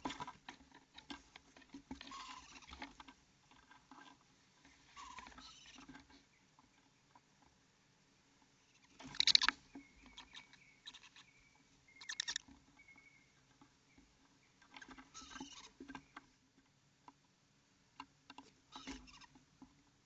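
Owlets scrabbling about inside a wooden nest box: irregular bursts of scratching and rustling as claws and downy feathers move over wood and nest litter, the loudest burst about nine seconds in.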